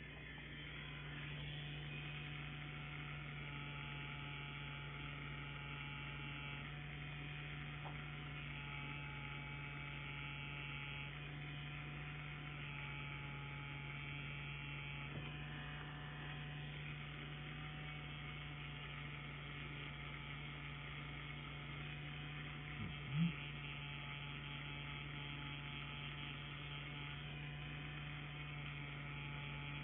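Solong CNC Q5 wireless rotary tattoo pen running with a steady hum as it works, with one brief sharp knock about three-quarters of the way through.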